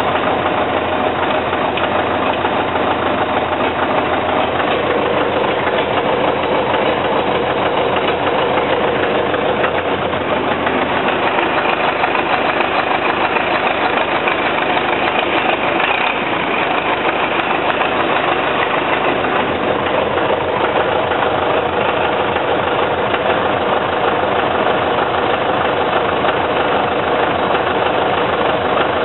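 Vehicle engine running steadily and loud, with a fast, even rhythm; its pitch shifts a little now and then.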